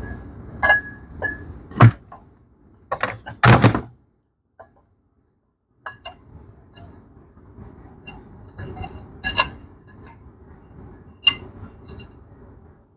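Metal clutch and flywheel parts being handled and set in place: a series of clinks and knocks, the loudest a few seconds in. After a pause of about two seconds come lighter clinks and another sharp knock.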